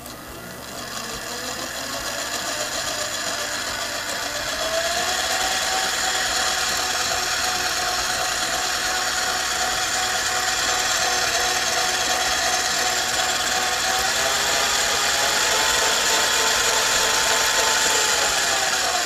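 Electric stand mixer, a Tramontina by Breville, running as it beats a liquid cake batter in its steel bowl. The motor whine builds up over the first few seconds, steps up in pitch about four seconds in and again later as the speed is raised, then starts to wind down as it is switched off.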